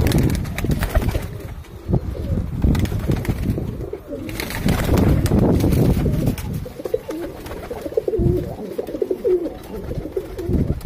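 A flock of domestic pigeons cooing in their loft, the calls coming mostly in the second half, over bouts of low rumbling noise near the start and in the middle.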